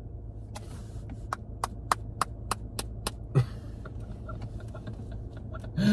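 A quick run of about nine light, sharp taps, roughly three a second, that stops about three seconds in, with a short rustle just after, over a low steady hum.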